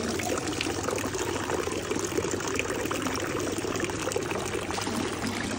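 Water running steadily from a stone fountain's metal spout, pouring into a plastic cycling water bottle and splashing into the stone trough below.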